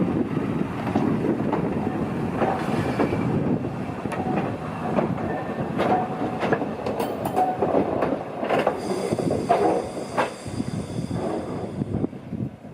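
A Fukui Railway railcar moving slowly into the depot: a steady rumble of running gear with sharp clacks as the wheels cross rail joints and switches. Short wheel squeals come several times, and near the end there is a high whine.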